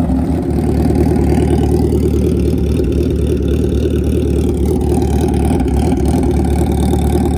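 Kawasaki ZX-14 drag bike's inline-four engine idling steadily.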